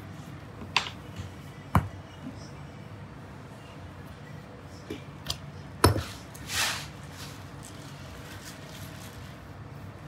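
A few sharp knocks and clicks of a baker's tools and hands on a work table as patyr dough is stamped and scored, with a brief swish about two-thirds of the way in, over a low steady room hum.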